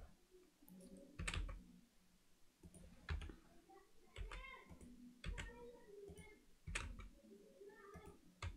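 Computer keyboard keystrokes and mouse clicks, faint: about six separate taps spread over several seconds as shortcut keys are pressed.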